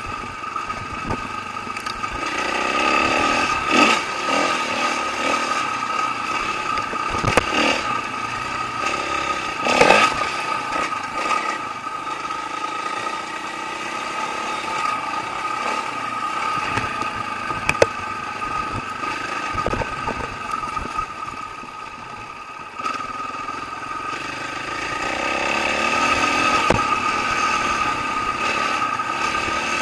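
Dirt bike engine running along a rough trail, its note rising and falling with the throttle, with sharp knocks and rattles from the bike over bumps. The engine eases off about two-thirds of the way through and picks up again.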